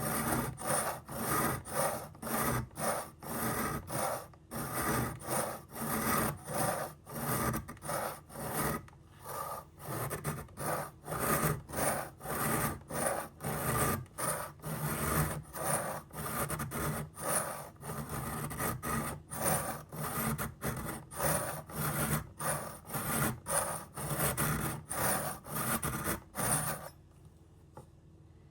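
A knife being sharpened: rhythmic rasping strokes of the blade, about two a second, that stop abruptly near the end.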